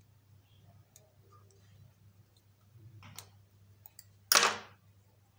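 Light clicks and taps of hands and a small screwdriver working on a model made of board and plastic tubing, over a low steady hum. About four seconds in comes one short, loud handling clatter that dies away within half a second.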